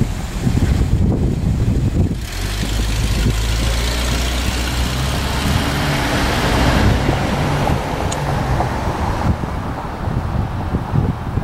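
Wind buffeting the microphone, with a motor vehicle passing: a steady engine hum and rushing tyre noise swell to a peak about seven seconds in, then fade.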